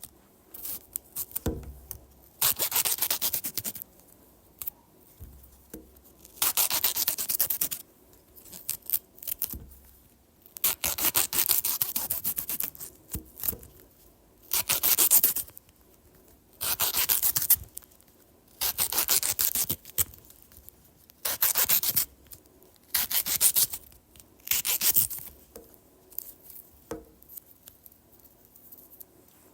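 Knife slicing through a banana: about nine drawn, rasping strokes of a second or so each, with short pauses and a few light taps between them.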